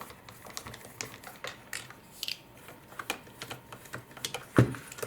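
Irregular light clicks and ticks of a screwdriver working Phillips screws out of the plastic underside of a Dyson V10 cordless vacuum, with one louder knock about four and a half seconds in.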